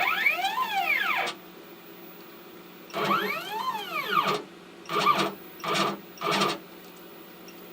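CNC router's stepper motors jogging the axes in five moves: two longer ones whose whine rises in pitch and falls again as the motors speed up and slow down, then three short ones in quick succession. The machine is positioning the new 1/8 inch bit over the touch plate to set Z zero.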